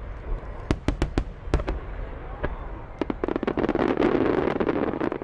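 Fireworks going off: a string of sharp separate bangs, then from about three seconds in a dense stream of crackling pops that grows loudest near the end and stops suddenly.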